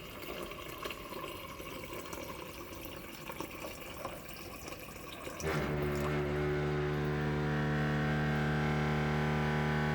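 Bosch refrigerator water dispenser: water runs softly for about five seconds, then a louder steady hum with several pitches starts abruptly and holds. This hum is the unwanted noise the dispenser makes.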